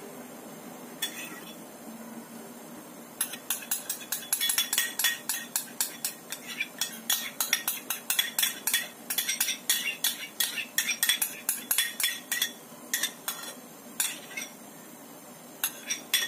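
A metal spoon clinking and scraping against a bowl as the last of the sauce is spooned out over the chicken. There is a single click about a second in, then rapid clinks, several a second, from about three seconds in, thinning to a few scattered taps near the end.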